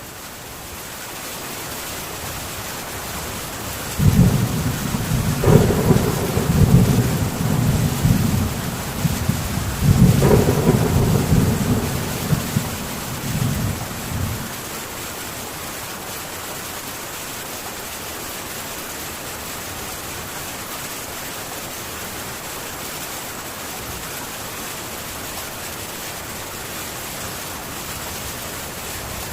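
Steady rain on a metal tin roof, an even hiss. About four seconds in, a clap of thunder breaks in suddenly as a low rolling rumble, swells twice and fades out after about ten seconds.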